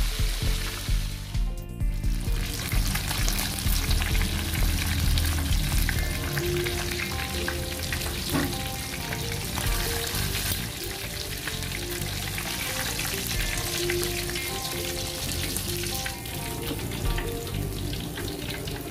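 Whole tilapia frying in hot oil in a wok: a steady sizzle with fine crackling.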